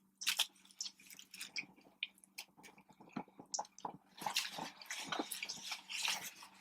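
Close-miked chewing of fried food: wet mouth clicks and smacks, coming more densely over the last couple of seconds, with a faint steady hum underneath.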